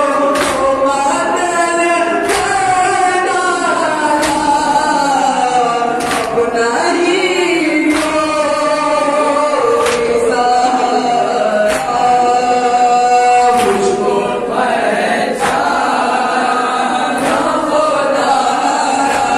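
Men chanting a noha, a Shia lament, in chorus, with sharp open-hand chest-beating (matam) strikes landing about every two seconds in time with the chant.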